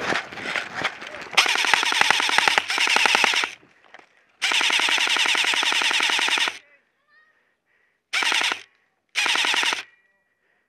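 Airsoft rifle firing full-auto in several rapid bursts: two long bursts of about two seconds each, then two short bursts near the end. Before the first burst, about a second of footsteps on dry, loose ground.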